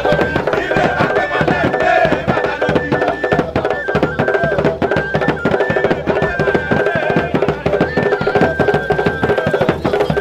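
Traditional procession drumming: several rope-tensioned barrel drums beaten in a fast, dense, driving rhythm. Above it runs a high held tone that steps between a few pitches.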